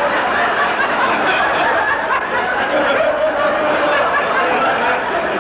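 Studio audience laughing, many people together at a steady level.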